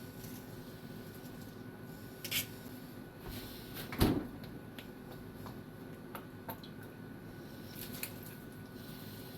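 Things being handled: scattered light clicks and knocks, with one louder thud about four seconds in, over a steady low hum.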